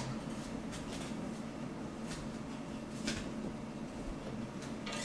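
Quiet room tone with a few faint soft clicks.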